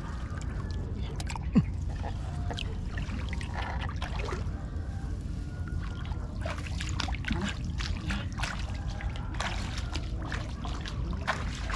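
Water splashing and sloshing in short, irregular bursts over a steady low rush, with one sharp knock about one and a half seconds in.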